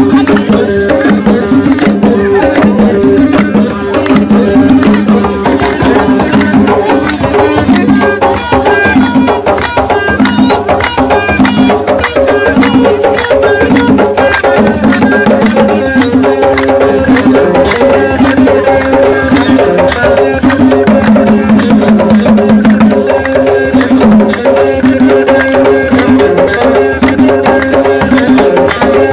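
Several drums played together in a fast, busy rhythm of dense beats, with voices over the drumming.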